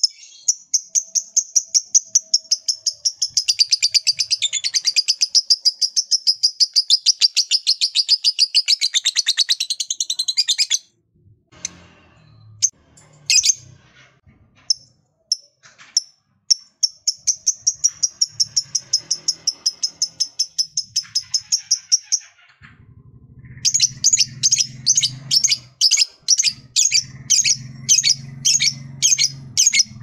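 Caged blue-mutation lovebird ngekek-calling: a long, very fast chattering trill of high notes lasting about ten seconds, then scattered chips, then a second long trill of about six seconds. Near the end comes a run of loud, sharp calls about two a second over the low flutter of its flapping wings.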